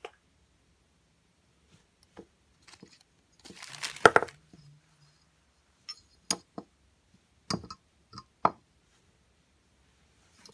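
Small glass vials and plastic containers being handled on a table: scattered clinks and knocks, with a brief rustle and the loudest clatter about four seconds in.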